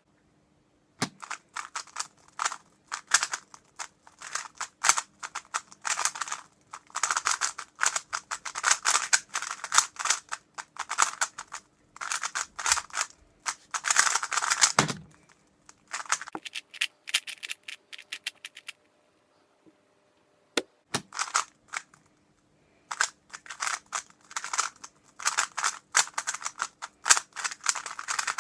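3x3 speedcube being turned very fast in a speedsolve: dense runs of rapid plastic clicking and clacking in bursts, broken by short pauses. Near the middle the clicking stops for a few seconds, with only a couple of single sharp knocks, and then resumes.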